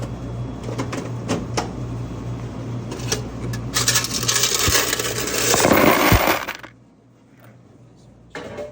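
Steady low hum of a running vehicle with scattered clicks; from about four seconds in a loud rattling noise builds for a few seconds. Then the hum and the rattle stop abruptly, leaving a much quieter background.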